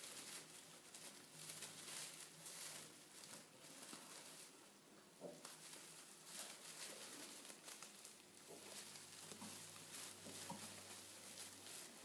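Near silence with faint rustling and a few soft, short sounds from a heap of three-day-old American Guinea Hog piglets sleeping on straw.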